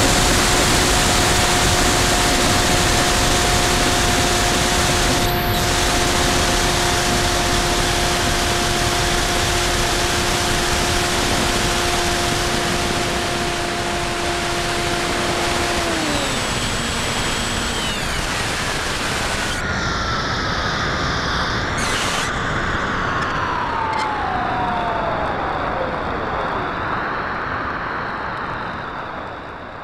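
Onboard sound of a Bixler 2 RC plane in flight: steady rush of air over the airframe with the electric motor's whine held at one pitch. About halfway through the whine drops in steps, then several tones glide slowly lower as the motor winds down, and the whole sound fades out at the very end.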